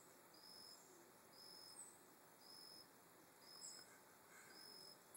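Near silence with faint outdoor wildlife sounds: a short high chirp repeating evenly about once a second, and a few sharper, higher chirps.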